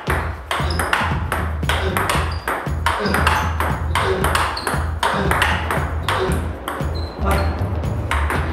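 Table tennis balls being hit and bouncing in a quick, even stream during multi-ball feeding: sharp bat and table clicks several times a second. Background music with a steady bass comes in at the start.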